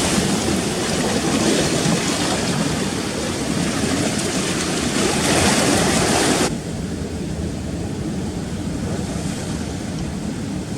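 Rough sea surf washing and breaking over rocks, with wind buffeting the microphone. About six and a half seconds in, the bright hiss cuts off abruptly and a lower, steady wash continues.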